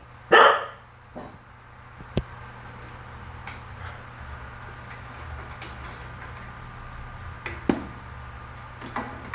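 Electric air compressor for tank aeration running with a steady low hum. A loud short noise comes about half a second in, and there are a sharp click about two seconds in and a knock near the end.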